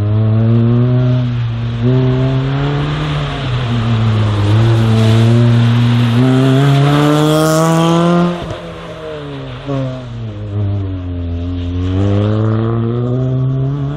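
Volkswagen Polo slalom car's engine revving up and dropping back again and again as it weaves between cones, with a sharp drop in revs about eight seconds in. A hiss of tyre spray off the wet tarmac comes in alongside, strongest around seven to eight seconds in.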